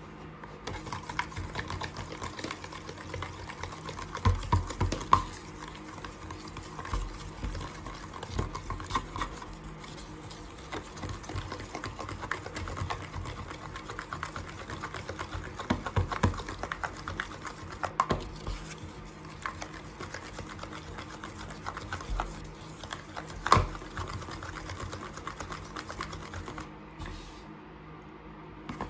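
Plastic spoon stirring and scraping a thick shampoo-and-baking-soda slime in a plastic food container: a quick, uneven run of small clicks, scrapes and squelches, with a few louder knocks of the spoon against the container.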